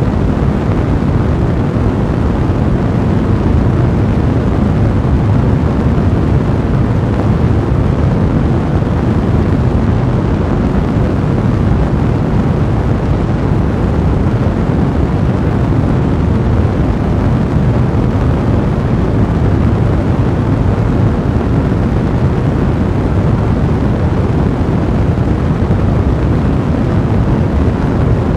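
Fireplace fire blazing: a steady, low rumbling roar with fine crackling running through it.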